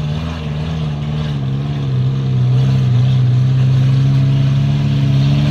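Off-road 4x4's engine running steadily as it crawls through mud, a low drone with small pitch wobbles that grows louder about two seconds in.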